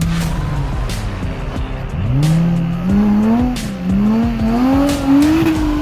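Off-road 4x4's engine revving hard in repeated surges, its pitch climbing with each burst of throttle, with scattered knocks and clatter throughout.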